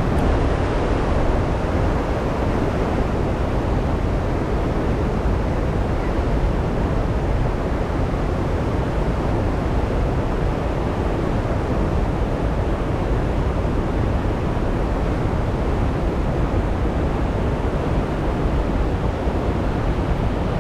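Steady rush of water pouring over a weir, with wind buffeting the microphone and adding a low rumble.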